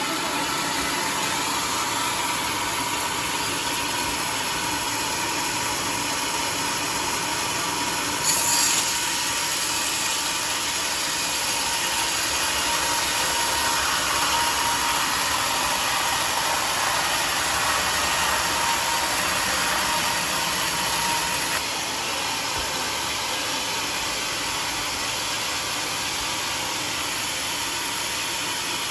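Homemade sawmill running with a steady mechanical noise and a constant tone; a short louder jump about eight seconds in, and the sound drops a little about twenty-two seconds in.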